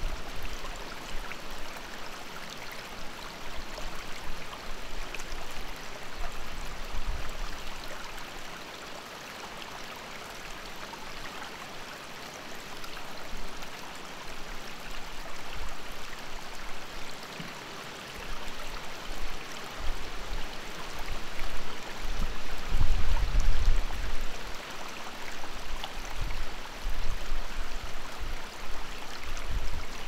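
Shallow rocky creek babbling and trickling over stones in a steady, even rush. A few low rumbles come in near the start and again, louder, about three-quarters of the way through.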